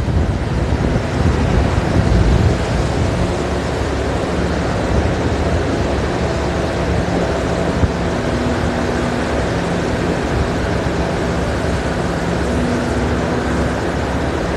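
Steady drone of the floating crane's conveyor machinery loading coal into the bulk carrier, with a faint steady hum running under it. Wind buffets the microphone in the first couple of seconds.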